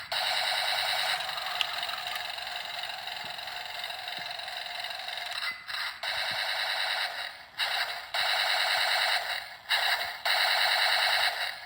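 Small electric motor of a radio-controlled toy whining steadily, then cutting out briefly about every two seconds as it is driven in short bursts.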